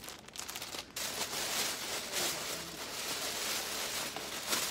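Plastic packaging crinkling and rustling as it is handled. It is faint for about the first second, then a steady, dense crinkle.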